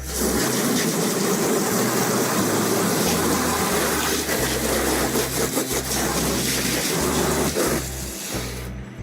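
Water gushing out in a heavy, steady pour, stopping suddenly near the end, over background music.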